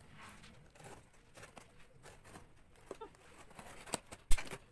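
A parcel being handled on a table before opening: small rustles and clicks of the packaging, with two sharp knocks near the end, the second the loudest.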